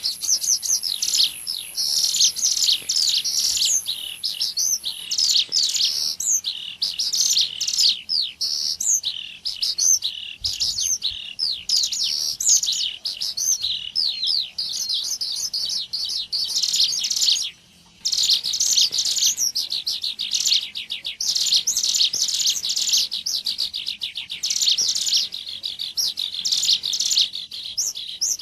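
Ciblek gunung birdsong lure recording: dense, rapid high chirps and trills from several overlaid calls, played to draw in the bird. The calls break off for a moment about two-thirds of the way through. A thin high steady whistle sounds over the first few seconds.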